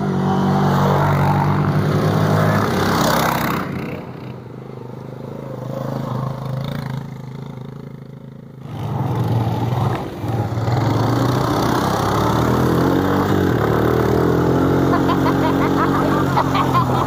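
ATV engine running on a trail ride, with a steady engine note. It falls away to a quieter sound for about four seconds near the middle, then comes back up and runs steadily again.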